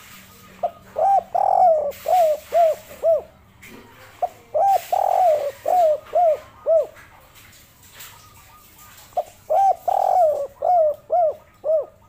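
Spotted dove cooing: three phrases, each a short opening note, a longer rolling coo and then three short 'kuk' notes, the song style dove keepers call 'kuk 3'.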